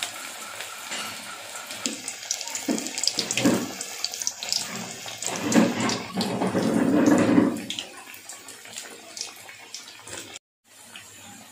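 Onion vadas of gram-flour batter deep-frying in hot oil, sizzling and crackling steadily. The sizzle swells louder for about two seconds in the middle, then settles, and briefly cuts out near the end.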